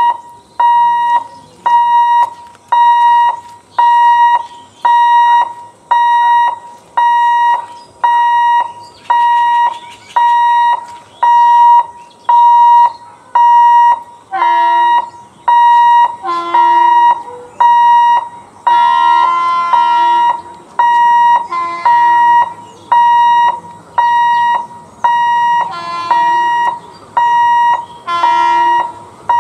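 Electric level crossing warning alarm beeping about once a second in a high, steady tone, warning that the gate is closing for a train. About halfway through, other horn-like tones sound over the beeping.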